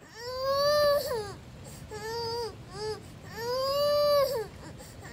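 A baby crying in a run of wails: a long rising-and-falling cry, two short ones, then another long one.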